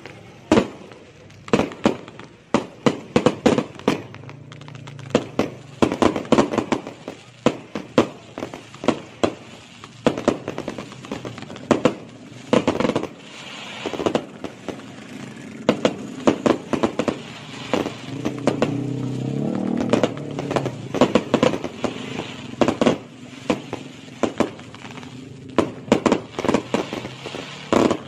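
Fireworks bursting overhead in a continuous barrage of sharp bangs and crackles, fired in rapid irregular volleys.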